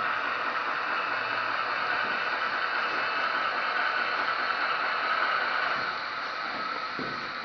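Märklin HO model steam locomotive and train running along the track close by, a steady whirring rush of motor and wheels that eases slightly after about six seconds.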